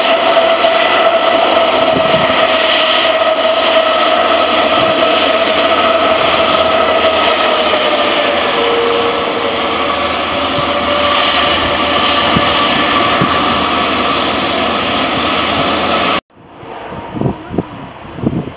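Airbus A330-200 jet engines running at taxi power as the airliner rolls past close by: a loud, steady jet whine with held tones, one sagging slightly in pitch. Near the end it gives way abruptly to a quieter, duller rumble with a few low thumps.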